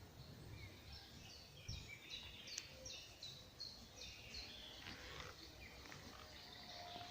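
Faint birdsong: a small bird repeating short high chirps, about three a second, for a few seconds, over a low background hiss.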